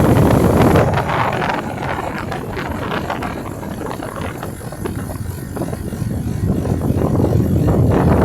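Beko air conditioner running very noisily: a loud low rumble with irregular rattling and clattering, swelling again near the end.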